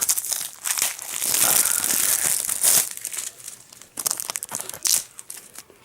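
Plastic shrink wrap crinkling and tearing as it is pulled off a Blu-ray case. There is a long, loud stretch of crackling in the first half, then scattered short crinkles.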